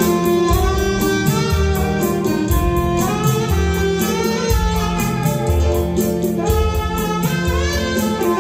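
Saxophone playing a melody live over keyboard backing, with a pulsing bass line and a steady beat.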